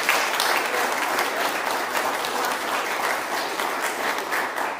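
A small congregation applauding, many hands clapping steadily, easing slightly near the end.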